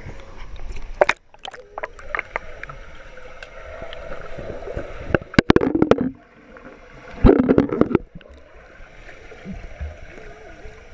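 Pool water splashing and sloshing around an action camera as it dips in and out of the water, with muffled underwater gurgling. Louder bouts of splashing come about five and seven seconds in.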